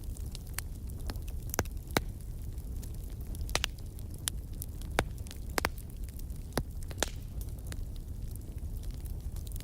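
Wood fire in a fireplace crackling, with irregular sharp pops over a low steady rumble of the burning fire.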